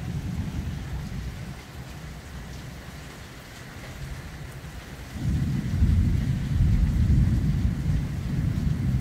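Thunder rumbling over steady rain: the deep rumble dies down in the middle, then swells suddenly to a loud, long rumble about five seconds in.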